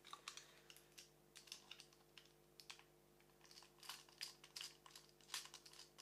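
Faint, irregular light clicks and ticks of a small screwdriver working the tiny screws of a laptop hard drive's metal caddy, with the drive and caddy being handled.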